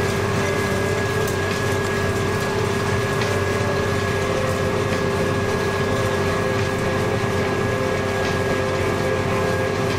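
Steady engine drone with a constant high-pitched whine, heard from inside a moving farm vehicle's cab.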